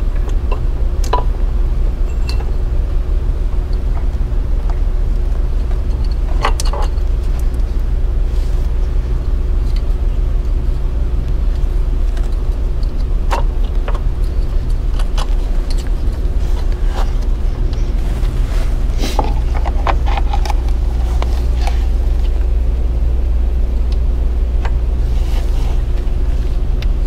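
A steady low background hum, with a faint higher tone held above it, under scattered light clicks and knocks from the high-pressure fuel pump and its line being handled and fitted back onto the engine.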